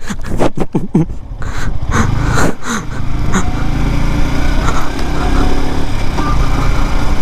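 Yamaha R15's single-cylinder motorcycle engine running steadily, coming to the fore about a second and a half in, with a couple of light knocks.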